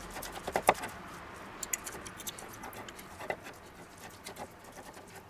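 Metal forks shredding cooked pork on a wooden cutting board: irregular light clicks and scrapes as the tines tap and drag against the board, with one sharper click under a second in.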